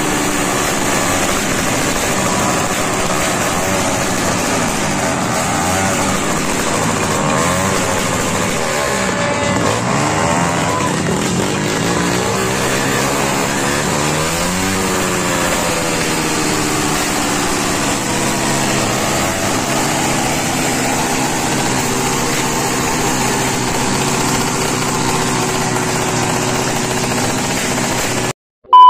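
Motorcycle engines revving, their pitch rising and falling again and again over a steady, loud din.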